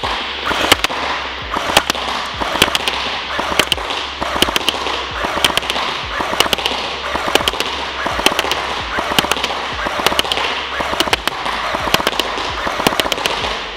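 SVU-AS airsoft electric bullpup rifle firing full-auto, its gearbox cycling rapidly in a long stream of fast cracks, with BBs smacking into a cardboard-backed paper target.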